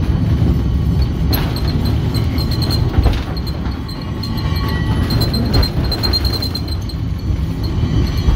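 Angels Flight funicular car running on its rails, heard from inside the car: a steady low rumble with a faint high ticking several times a second and a few knocks, one about a second in and another about three seconds in.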